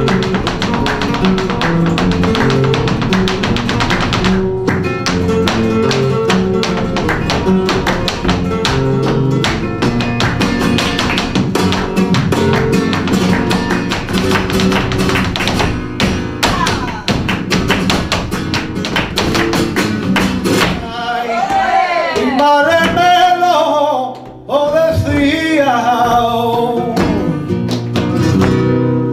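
Live flamenco: Spanish guitar with the dancer's rapid percussive footwork striking the stage floor. About two-thirds of the way through, a male singer comes in with wavering, drawn-out cante lines over the guitar.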